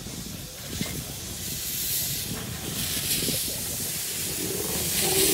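Narrow-gauge steam locomotive moving off with its cylinder drain cocks open: steam hissing in repeated bursts, growing louder as it draws near.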